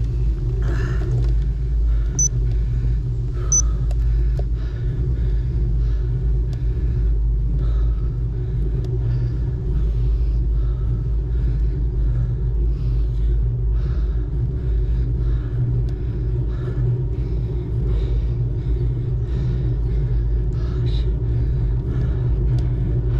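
Wind buffeting the microphone while riding a bicycle: a loud, steady low rumble, with faint higher hiss coming and going.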